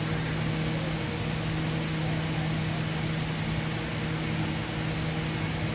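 Steady rushing hum of large ventilation fans running in a hot metal building, with a constant low drone under it.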